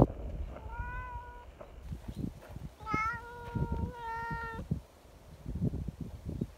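A cat meowing three times: a short call about half a second in, then two longer, fairly level calls around three and four seconds in.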